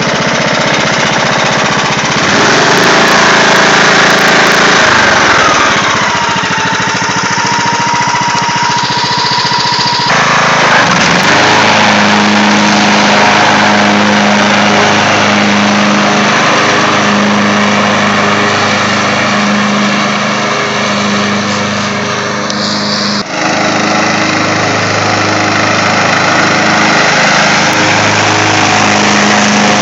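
Craftsman YS4500 lawn tractor's engine running steadily under load while it mows grass with its 42-inch deck. About a quarter of the way in, a whine falls in pitch and holds for a few seconds, and the sound breaks off briefly near the three-quarter mark.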